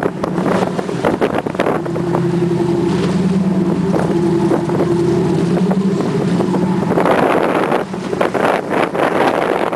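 Boat engine running at a steady pitch under heavy wind buffeting on the microphone. The engine hum stands out most from about two seconds in until about seven seconds in, and the wind rush covers it before and after.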